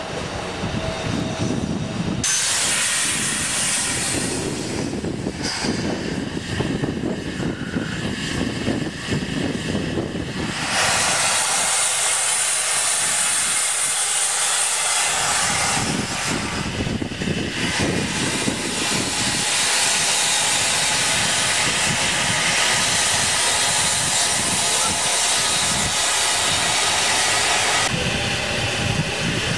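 Narrow-gauge steam locomotive F.O. 4 letting off steam from a boiler-top fitting: a loud, steady hiss that shifts abruptly in level a few times. A lower rumble comes under it in the first couple of seconds.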